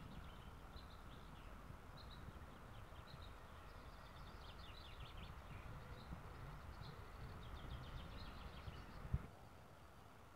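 Small birds chirping and trilling, over wind rumbling on the microphone. A sharp click comes about nine seconds in, after which the wind rumble drops away.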